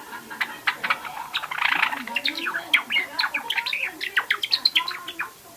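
Young white Java sparrow practising its song: a rapid, jumbled run of short clicks, chirps and squeaky notes, the rambling subsong of a juvenile about two and a half months old. The run thickens about a second and a half in and breaks off just before the end.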